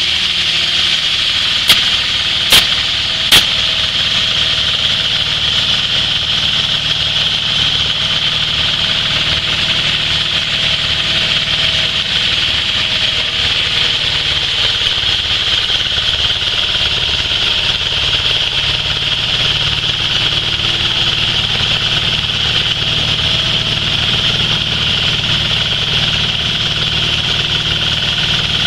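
Stainless-steel hammer mill running steadily, a high rushing sound over a low hum, with three sharp knocks a couple of seconds in.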